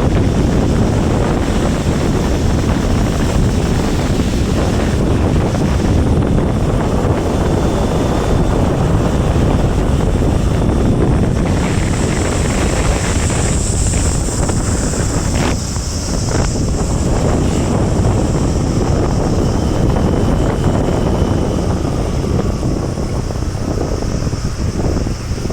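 Loud steady wind buffeting the microphone, a low rushing rumble throughout. A high, shrill hissing tone rises over it for a few seconds around the middle.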